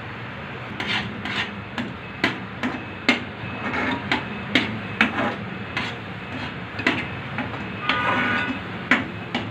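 A metal spoon stirring thick semolina halwa in a metal pan, knocking and scraping against the pan's sides and bottom in irregular clinks, several a second.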